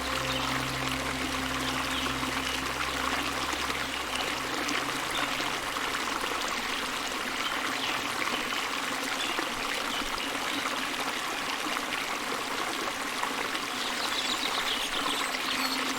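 Steady running water of a stream or brook. Soft held music notes sit underneath, fading out a few seconds in and returning near the end.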